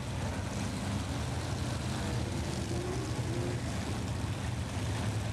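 Vintage stock car engines running together during a dirt-track race, a steady drone with a faint rising note near the middle as a car accelerates.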